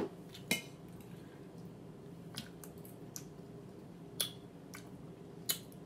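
A person eating: quiet chewing with about five short, sharp clicks and smacks of the mouth spread through.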